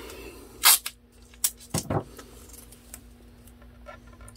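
Handling noise from small objects being picked up and set down: a few sharp clicks and taps, the loudest just under a second in, then fainter ticks, over a faint steady hum.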